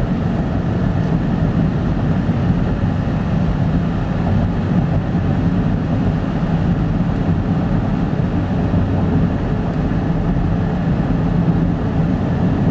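Steady engine and tyre hum of a car driving along a paved road, heard from inside the cabin.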